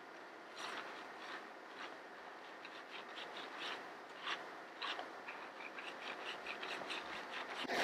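Faint rubbing and short scratching strokes of hands working over skin and hair in a massage, irregular and coming faster in the second half.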